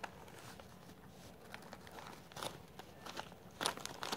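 Faint rustling and scattered clicks of a small bag of hard candy being handled and opened, loudest about three and a half seconds in.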